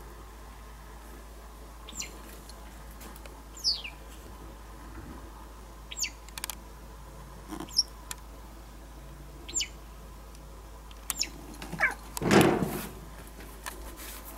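White wagtail calling: short, high notes, each falling quickly in pitch, repeated about every two seconds. About twelve seconds in comes a louder burst of noise.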